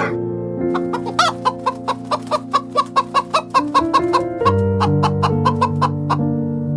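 A flock of chickens clucking in a quick run of short, sharp clucks, about four or five a second, tailing off near the end. Slow piano music plays underneath.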